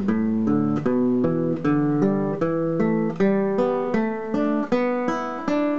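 Nylon-string classical guitar playing single plucked notes, about three a second: a pentatonic scale exercise in intervals, each note followed by the scale note two steps on, skipping the one between. The last note rings on near the end.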